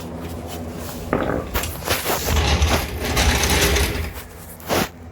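Pneumatic shop tool running in several short bursts from about a second in, with a steady low hum underneath. It is most likely loosening a Chevy Impala's subframe bolts.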